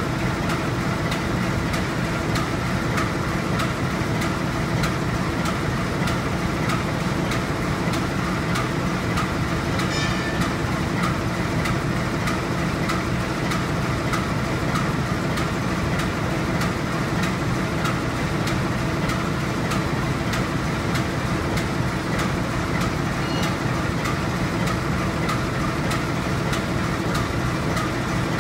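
GE U18C (CC 201 class) diesel-electric locomotive's V8 diesel engine idling steadily.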